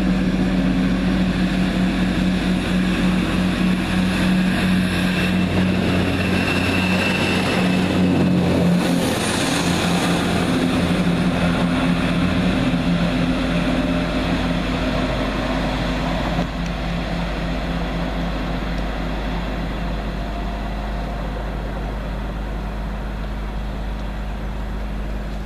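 Class 170 diesel multiple unit passing and pulling away: the steady low drone of its underfloor diesel engines, with wheel and rail noise that swells as it goes by. About sixteen seconds in the sound drops a step quieter as the train draws off.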